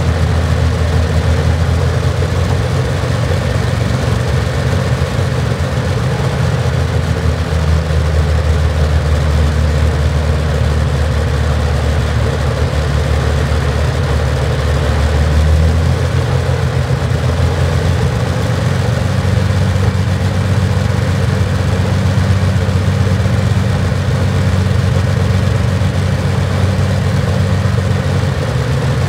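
Rolls-Royce Merlin XX V12 aero engine running steadily on a test rig through its saxophone-style exhausts, with its low note shifting slightly about halfway through.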